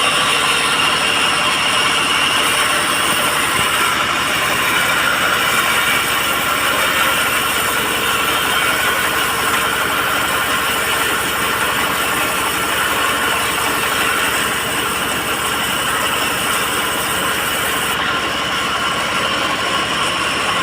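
Sawmill band saw running steadily as it saws teak timber.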